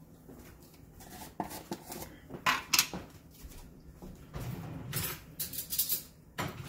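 Kitchenware being handled: several sharp clinks and knocks of containers and utensils, with a quick cluster of them about five seconds in.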